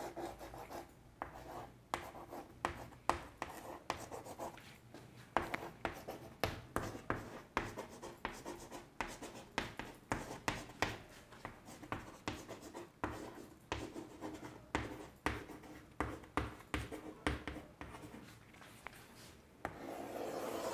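Chalk writing on a chalkboard: a quick run of short taps and scratches as capital letters are stroked out, then near the end one longer, steadier scrape as a line is drawn under the heading.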